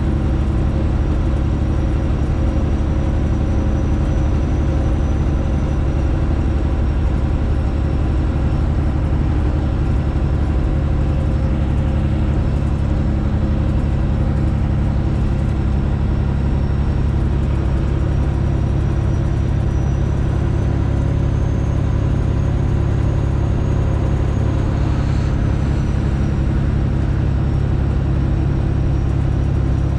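Straight-piped Detroit Diesel in a Freightliner Classic XL semi truck running steadily at cruise, a loud, even low drone with a faint high whine that rises slightly and falls back in the second half.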